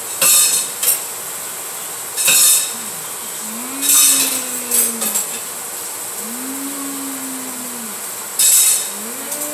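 A girl humming 'mmm' in three long rising-and-falling tones, as if tasting something, with short loud crackling bursts in between from slime being squished close to the microphone.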